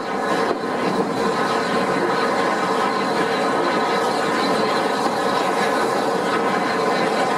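Steam-hauled train running steadily at speed behind Bulleid West Country Pacific No. 34046 Braunton, heard from an open carriage window: a continuous rush of wheels on rail and passing air.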